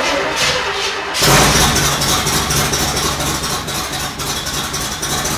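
Freshly rebuilt Camaro Z28 V8 on its first start: cranked on the starter, it catches about a second in and runs unevenly. It isn't firing properly, which the owners suspect may be ignition timing.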